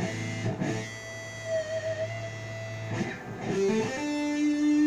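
Jackson KVXMG King V electric guitar played through a Crate solid-state amp with the gain set very low. A low chord rings for about three seconds, then a note slides up and is held.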